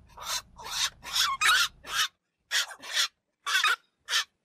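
Black-crowned night herons calling: a quick run of short, harsh squawks, about two a second, with a brief pause a little after two seconds in.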